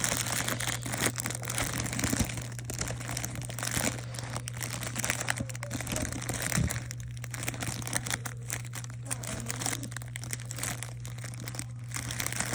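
Small plastic bags of diamond-painting drills crinkling and rustling as they are handled and sorted, with a continual crackle, over a steady low hum.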